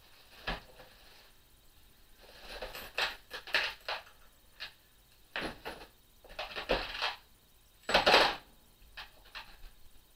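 Loose metal hand tools clinking and clattering in a plastic toolbox as they are picked through and moved, in irregular bursts, with the loudest clatter about eight seconds in.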